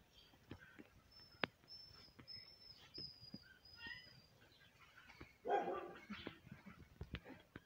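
A dog gives one short bark about five and a half seconds in, the loudest sound. Before it come a run of five short high chirps and a few light clicks.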